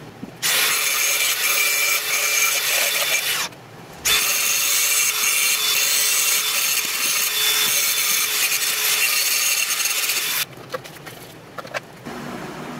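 DeWalt angle grinder grinding down weld beads where a steel bar is welded onto an adjustable wrench, the disc running against the steel with a steady whine. It grinds in two runs, about three seconds then about six, with a short break between, and stops about ten seconds in; a few faint clicks follow.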